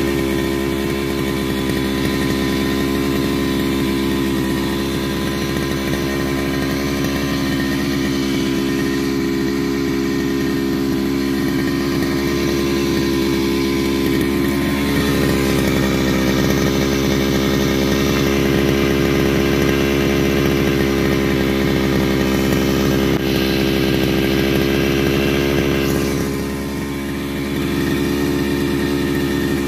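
Small two-stroke engine of a TD40/FD40 brushcutter running steadily at a raised idle, about half throttle, during break-in of its new piston and cylinder block set. Its speed sags briefly about halfway through and again near the end.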